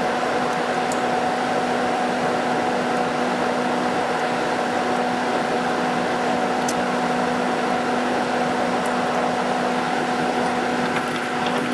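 Outdoor air-conditioning unit running, its fan rushing steadily over an even hum, heard from right on top of the unit.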